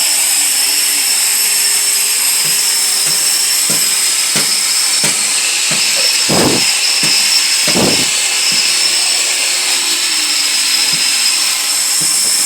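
Terrazzo floor grinding machine running steadily with a high whine, with scattered knocks and two heavier thumps partway through.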